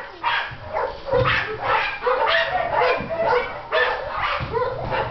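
Puppies barking and yipping, a quick run of short high calls, several a second.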